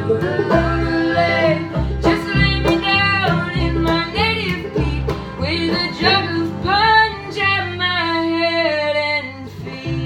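Bluegrass-style string band playing: banjo, guitar and bass, with a lead voice and harmony voices singing over them.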